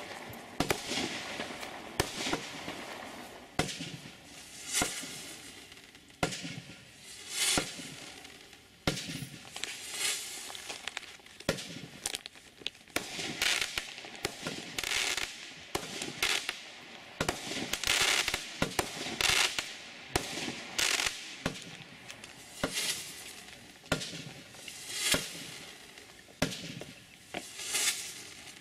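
TNT Sky Hunter firework firing a long series of shots: sharp bangs of launches and bursts, roughly a second apart, many followed by a brief sizzling crackle of sparks.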